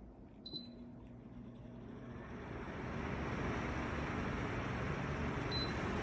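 Portable evaporative air cooler beeps once as it is switched on, then its fan spins up over about a second to a steady rush of air. It beeps again near the end.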